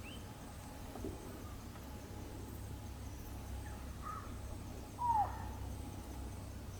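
A single short animal call, falling in pitch, about five seconds in, with a fainter chirp a second before it, over a steady low rumble.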